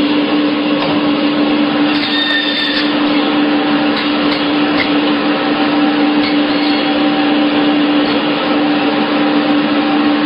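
A machine running steadily, a dense even noise with a constant low hum.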